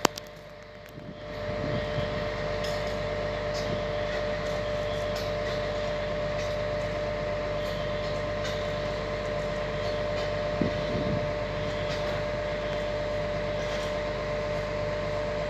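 XCMG 100-ton mobile crane's engine running steadily while it holds a load on the hook, a constant hum carrying a steady whine. The sound builds up over the first second or two, then stays level.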